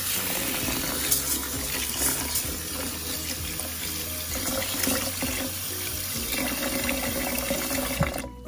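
Tap water running into a rice cooker's inner pot of glutinous rice to wash it. The stream starts abruptly and shuts off just before the end.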